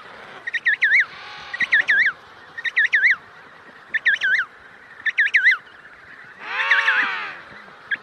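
Emperor penguin chick calling: repeated short whistled trills, each a burst of three or four quick sweeping notes, about once a second. A longer, fuller call with a lower voice comes faintly about a second in and loudly near the end.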